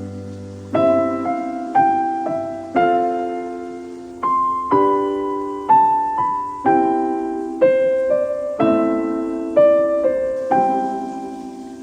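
Background piano music: slow, gentle chords and single notes, each struck and left to fade, about one a second.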